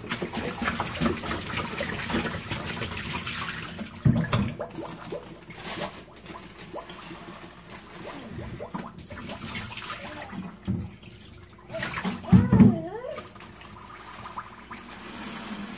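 Water running and splashing into a plastic jar in a stainless steel kitchen sink, with a few knocks of the jar against the sink.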